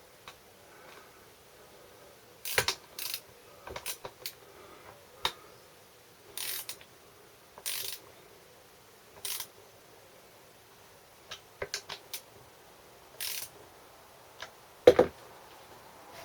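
Hand tools working on a Briggs & Stratton small engine: scattered clicks and short ratcheting strokes as the ignition coil's mounting bolts are tightened after its air gap is set, with a louder knock near the end.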